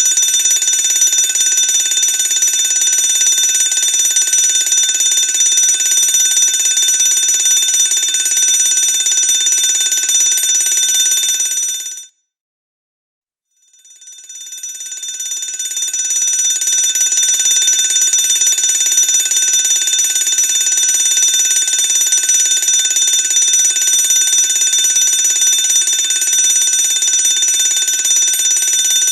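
Electric fire alarm bell ringing continuously. It cuts off suddenly about twelve seconds in, is silent for a second and a half, then swells back in and keeps ringing.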